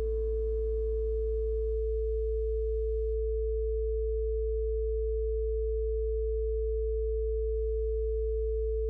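A steady 55 Hz sine tone held under a second steady pure tone a little below 500 Hz, with no change in loudness. The tail of soft piano music fades out in the first two or three seconds, leaving the tones alone.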